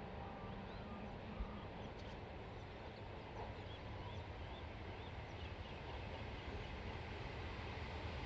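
Low rumble of EL class diesel locomotives hauling a freight train toward the listener, slowly growing louder, with birds chirping over it.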